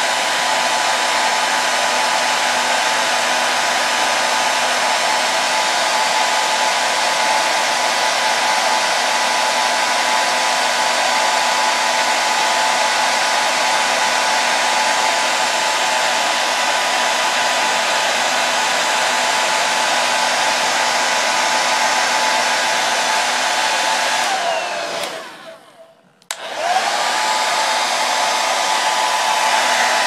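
Hand-held hair dryer running on high heat, a steady rush of air with a motor whine. Near the end it winds down almost to silence for a moment, then spins straight back up and runs on.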